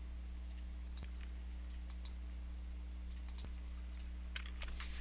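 Scattered light clicks and taps, irregular and a little denser near the end, over a steady low hum.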